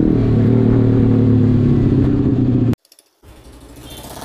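Motorcycle engine running steadily while riding in third gear at about 45 km/h. It cuts off suddenly a little under three seconds in, followed by quieter street noise.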